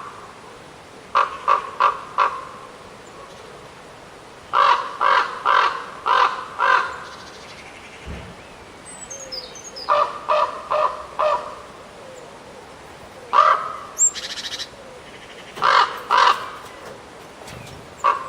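A corvid giving harsh caws in quick runs of four or five, repeated several times with pauses between runs, and a couple of single or paired caws near the end. Faint high chirps of a small bird come in about nine seconds in.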